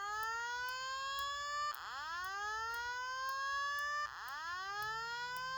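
Simplex fire alarm speaker strobe sounding a slow whoop evacuation tone: a rising sweep in pitch that drops back and starts again about every two and a third seconds.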